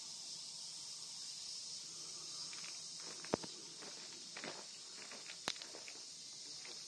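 A steady high-pitched insect chorus throughout. From about halfway in, footsteps on dry leaf litter and cedar needles rustle in, with two sharp snaps.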